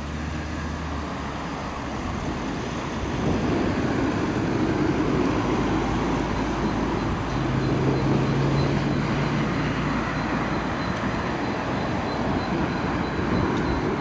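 Steady rumbling noise of riding a bicycle along a paved path: tyre and rattle noise with wind on the microphone, growing louder about three seconds in. A low steady hum joins for a couple of seconds in the middle.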